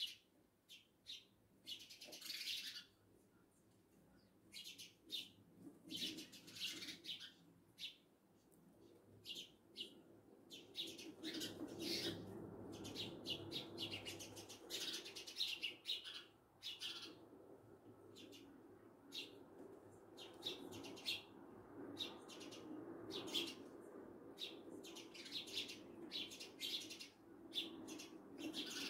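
Sparrows chirping and chattering: many short, repeated chirps in quick, irregular strings, in the chatter typical of house sparrows. A low, steady rumble joins underneath about ten seconds in.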